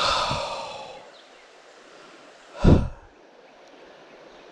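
A man's long, loud sigh that fades over about a second, then a shorter puff of breath about two and a half seconds later, over a faint steady hiss.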